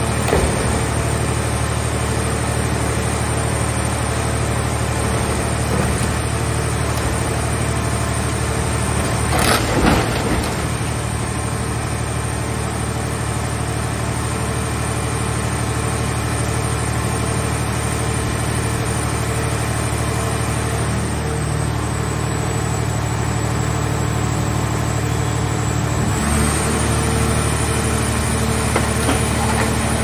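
Hydraulic power unit of a mobile car-shell baler running steadily under load, with a high whine over the drone. There is a single loud crunch of sheet metal about a third of the way in as the grab crane presses the car body into the baling box. Near the end the drone shifts and grows slightly louder as the press lid starts to close.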